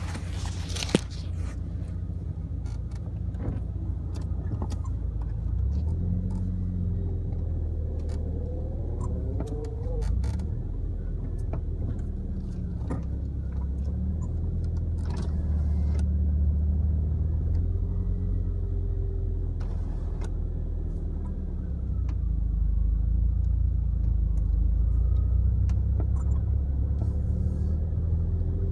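1989 Nissan U12 Pintara driving, heard from inside the cabin: a steady low engine, exhaust and road rumble, with the engine note rising about eight to ten seconds in and the sound growing louder in the second half. A single sharp click about a second in.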